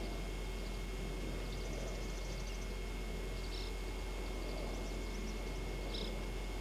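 Steady outdoor background noise with a low hum, overlaid by faint, short high-pitched chirps; two stand out a little, about three and a half seconds in and near the end.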